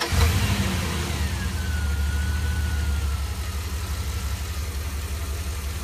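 Pickup truck engine catching right at the start and running at a steady idle, easing slightly in level as it settles. A faint high whine drifts slowly lower in pitch through the middle.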